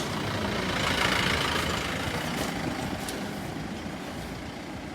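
A motor vehicle passing by, growing louder to about a second in and then slowly fading.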